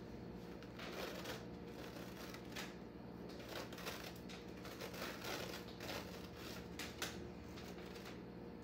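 Elastic bandage being unrolled and wrapped around a plush doll's leg: faint irregular rustling and scraping of the stretchy fabric, with a sharp click about seven seconds in.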